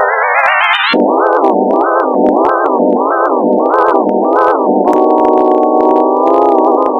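Synthesized chord in G major whose pitch traces the graphs of mathematical functions. It glides upward and cuts off about a second in, then swings up and down six times in an even wave, then settles into a steady held chord about five seconds in, with a brief wobble near the end.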